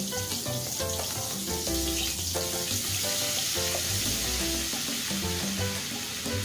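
Melted butter sizzling steadily in a pan over a gas flame as flour is added for a roux, with background music playing over it.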